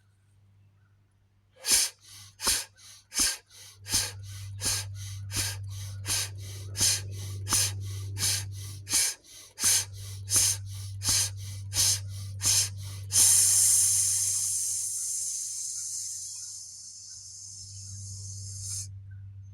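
A person doing rapid, forceful breathwork breaths, in and out about two to three times a second for some ten seconds. This is followed by one long hissing exhale of about five seconds that empties the lungs before a breath hold.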